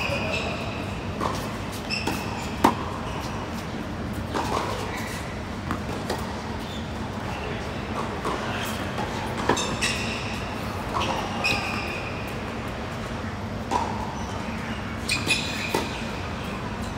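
Tennis rallies on a hard court: sharp racket strikes and ball bounces at irregular intervals, with brief high squeaks of tennis shoes on the court surface, over steady low background noise.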